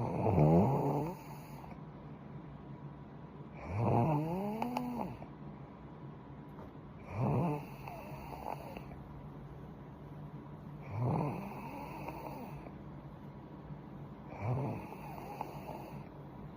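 A sleeping young woman snoring, one snore about every three and a half seconds, five in all.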